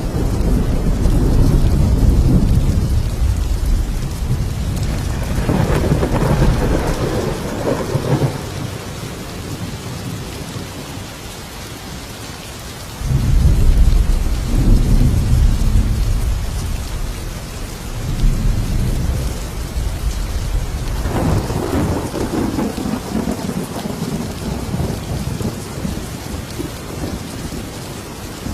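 Thunderstorm: steady heavy rain with several long rolls of thunder rumbling over it. The loudest roll breaks in suddenly about halfway through.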